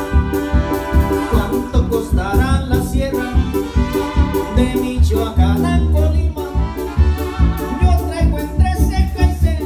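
Live Latin band music: electronic keyboards with an accordion-like lead over a drum kit keeping a steady beat and a heavy bass line, with a man singing.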